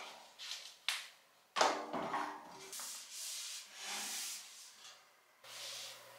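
A cloth wiping the rails of a white metal shelf in repeated swishes. Before that come a sharp knock and a louder clatter as the shelf frame is handled.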